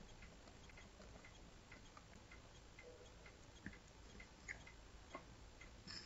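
Near silence: faint room tone with a few small, scattered ticks.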